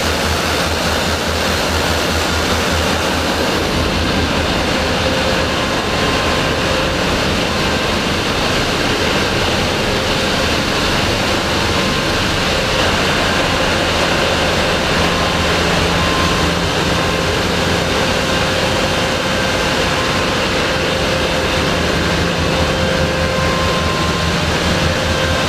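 A passenger ferry's engine room with its large diesel engines and machinery running: a loud, steady mechanical roar with a low throb and a few steady whining tones.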